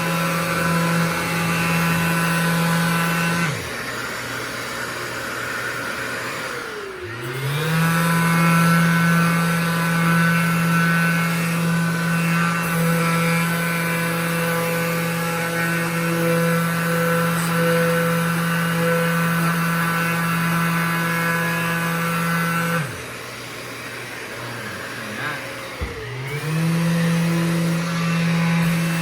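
Mirka 3x5 random orbital sander running with 320-grit paper on primed cabinet doors: a steady motor whine. It spins up, cuts out about 3.5 s in, starts again about 7 s in, stops near 23 s, and starts once more a few seconds before the end. A quieter steady hum carries on in the pauses.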